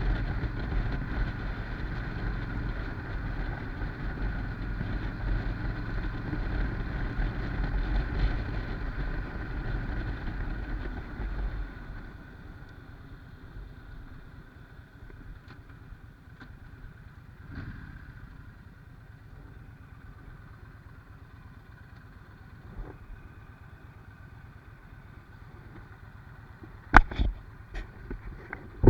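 Yamaha Stryker's V-twin motorcycle engine running under a heavy low rumble, which drops to a much quieter steady hum about twelve seconds in. A few sharp clicks near the end.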